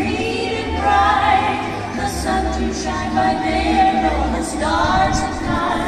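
Choral music: a choir singing long held notes over an accompaniment.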